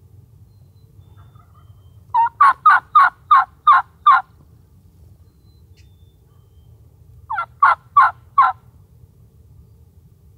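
Wild turkey gobbler gobbling twice: a long rattling gobble about two seconds in, and a shorter one about seven seconds in.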